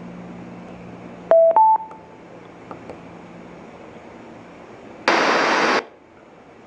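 Philips BT64W portable Bluetooth speaker powering on: a click of its button, then a two-note rising beep. About four seconds later comes a loud, harsh, hiss-like burst from the speaker that lasts under a second.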